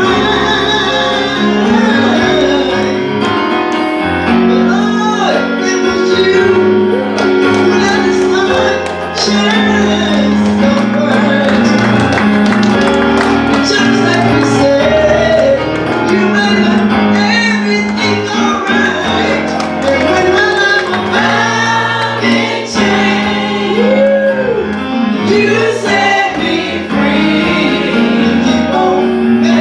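Church choir singing a gospel song together, mixed women's and men's voices, with keyboard accompaniment holding long low chords underneath.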